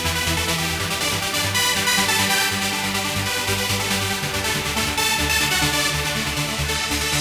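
Trance music in a breakdown: held synth chords over changing bass notes, without a pounding kick drum.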